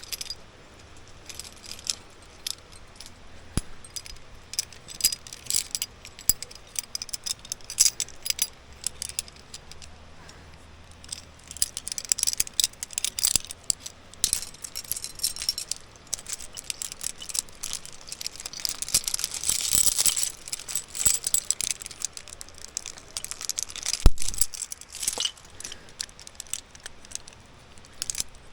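Metal climbing hardware, carabiners and rappel gear on a harness, clinking and jangling as it is handled while a rappel is rigged, with one louder knock near the end.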